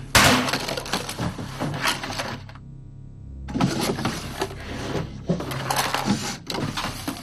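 Small hard objects clattering, clinking and knocking as hands rummage through a dresser drawer. The busy run of knocks breaks off for about a second midway, then starts again.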